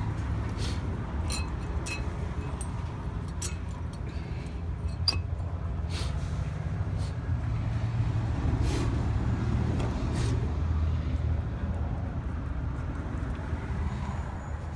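Steady low rumble with scattered light clicks and taps of brake pads and caliper parts being handled and fitted.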